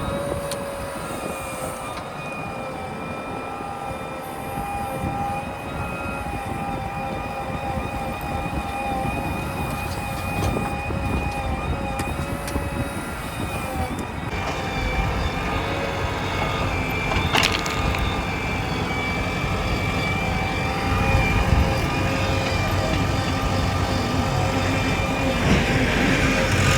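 Diesel engines of a backhoe loader and tractor running steadily, with a high, steady whine over a low engine rumble. The sound grows a little louder toward the end.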